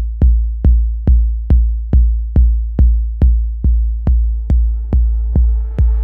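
Roland TR-808-style kick drum hitting steadily, a little over two beats a second, each a sharp click with a long, deep booming tail. From about four seconds in, a hissing synth riser and a held tone swell in beneath the kicks as the electronic track builds.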